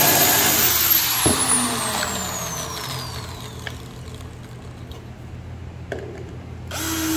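Corded electric drill running into a pine board. Once released, its motor winds down with a high whine that falls over about three seconds. Near the end a cordless drill spins up briefly with a steady hum.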